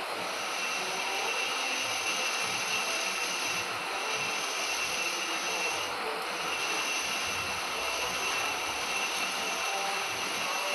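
Metal lathe running during a shaft turning operation: a steady mechanical hiss and whine with a thin high tone, briefly dipping twice.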